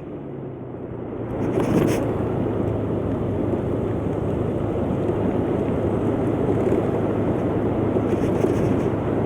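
125cc motor scooter on the move, its engine running steadily under a rush of wind on the microphone, which swells over the first couple of seconds and then holds steady.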